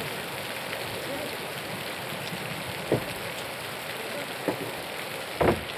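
Steady rain falling, an even hiss, with three short knocks, the last and loudest near the end.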